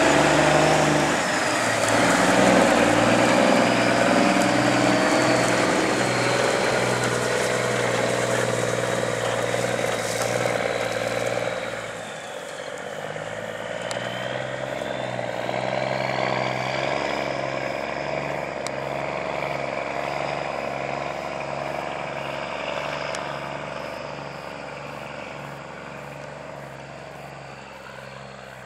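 Large diesel farm machinery running steadily, with a high whine that dips in pitch about midway and comes back up; the sound slowly grows fainter toward the end.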